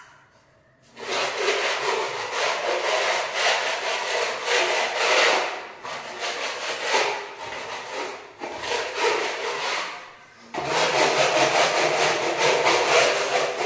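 Steel putty blade spreading wall putty over a plastered wall: a harsh scraping rub in repeated strokes. It starts about a second in, is weaker through the middle, stops for a moment and comes back strongly near the end.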